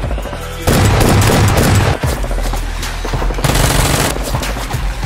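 Rapid automatic gunfire over background music, loudest in a burst about a second in and again a little past the three-second mark.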